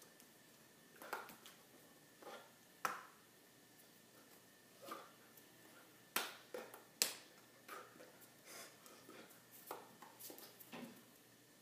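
Irregular sharp slaps and taps of hands striking each other and the chest while signing, the loudest a little under three seconds in and twice around six to seven seconds in.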